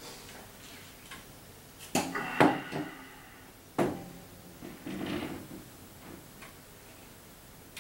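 Objects being handled on a wooden dresser: sharp knocks about two seconds in, again half a second later and near four seconds, then a short rustle around five seconds.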